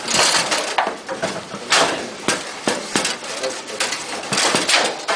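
Foosball in fast play: the ball is struck by the rod figures and knocks against the table, a quick irregular run of sharp clacks, with the rods sliding and rattling.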